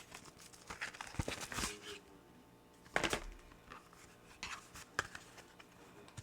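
Packaging of a boxed makeup set being opened by hand: several bouts of crinkling and tearing, the loudest about three seconds in.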